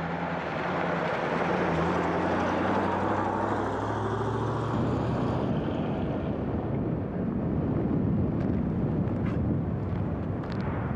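Engine of an old Soviet GAZ truck running as the truck drives past and away, its note fading out about five seconds in. After that a steady rush of noise goes on, with a few faint ticks near the end.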